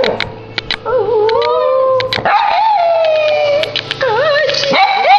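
Silky terrier howling: a run of long, wavering howls, each sliding up and down in pitch, with a few short yips between them.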